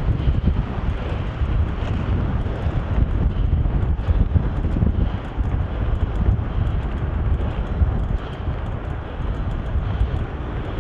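Steady wind rush buffeting the microphone of a camera on a moving two-wheeler, with the low rumble of the ride beneath it.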